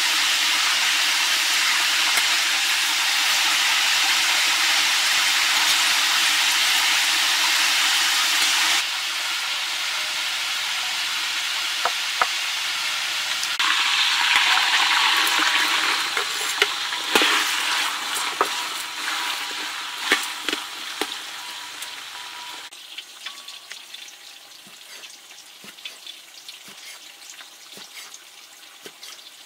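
Sauce sizzling and bubbling in a hot pan. The hiss grows louder about halfway through, then dies away. In the last several seconds a cleaver taps against a wooden chopping board as it slices cooked meat.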